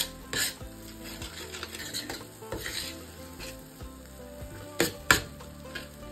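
A spoon stirring thick masala paste in a stainless steel pan, the paste sizzling as it cooks down to a well-cooked stage. The spoon scrapes and knocks sharply against the pan, at the start and twice about five seconds in.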